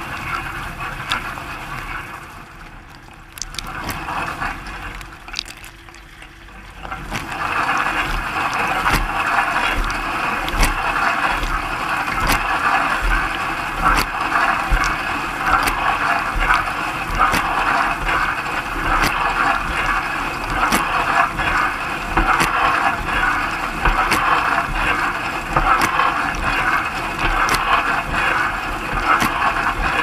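Dishwasher wash cycle heard from inside the tub: jets of water from the spray arm hitting the dishes and the camera, a dense hiss with many sharp ticks. The spray drops off a couple of seconds in and comes back louder about seven seconds in, then runs on steadily.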